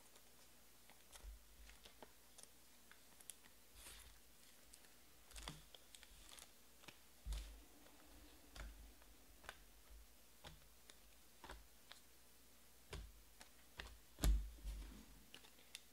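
Sports trading cards being handled, sleeved and set down in stacks on a table: sparse, irregular faint clicks and taps, with a slightly louder tap about seven seconds in and another near the end.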